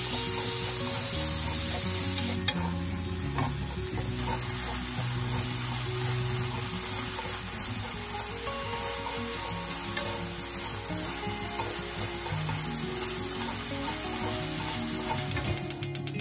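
Marinated beef strips sizzling in a nonstick frying pan as they are stir-fried with wooden chopsticks. Near the end, a quick run of clicks.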